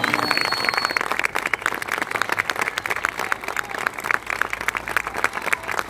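Audience clapping: a dense patter of hand claps that starts as the music cuts off and thins out gradually.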